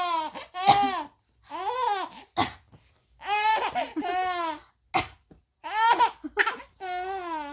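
Baby laughing in long, high-pitched squealing giggles, set off each time by a short adult cough. Two coughs fall about two and a half and five seconds in, each followed by a burst of laughter.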